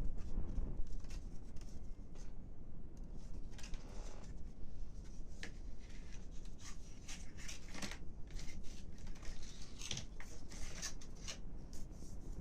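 Irregular short snips and scrapes of small wooden sticks being cut and trimmed by hand, coming thickest in the second half, over a low steady hum.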